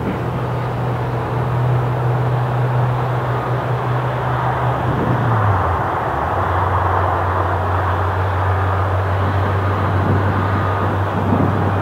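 Jet aircraft engines running: a steady rushing noise with a low hum that steps down slightly in pitch about five and a half seconds in.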